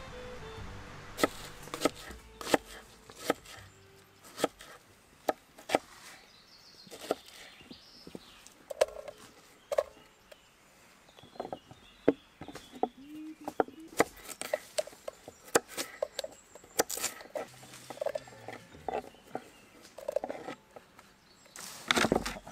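A knife chopping carrots on a wooden plank, giving sharp, irregular knocks of the blade against the wood, one or two a second, with a louder burst of knocks near the end.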